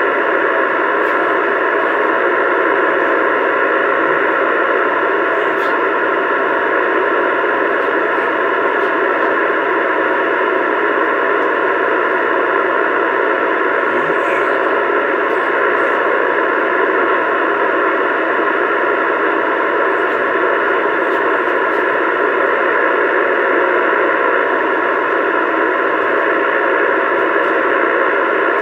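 Steady, loud static hiss from a CB radio's speaker, held at an even level with no break, the narrow sound of a radio receiver's audio.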